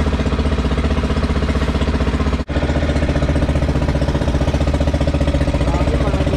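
Outrigger boat's (bangka) motor running steadily at cruising speed, a fast even chugging, with an instant's break about two and a half seconds in.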